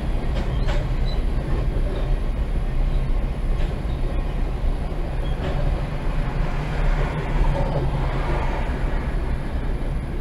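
Empty covered hopper cars of a freight train rolling past: a steady rumble of steel wheels on the rails, with a few sharp clicks.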